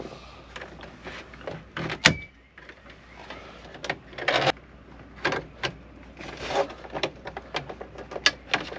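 Plastic dash trim bezel of an NNBS Chevy Silverado being pried off around the radio and climate controls: sharp snaps of its retaining clips letting go, the loudest about two seconds in and several more near the end, between plastic scraping and rattling as the panel is worked loose.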